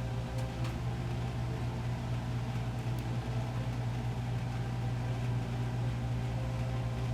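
Steady low mechanical hum of a running machine, with a few faint clicks in the first second.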